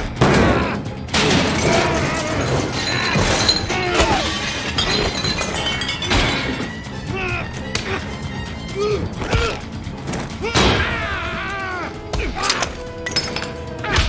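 Film fight soundtrack: action music under a fistfight, with repeated punches and thuds and things smashing and shattering.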